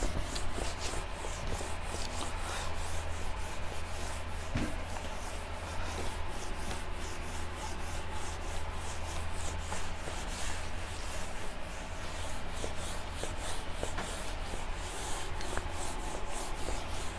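Whiteboard eraser rubbing across a whiteboard in quick back-and-forth strokes, wiping off marker writing.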